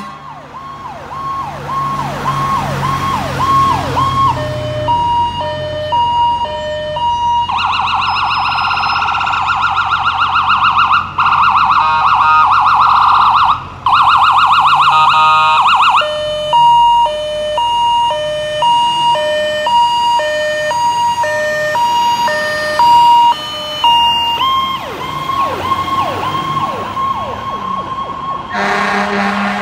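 Fire engine's electronic siren cycling through its tones. It starts with slow rising-and-falling wails, switches to a two-note hi-lo, then a fast yelping warble for several seconds mid-way, back to hi-lo, and ends with wail sweeps again.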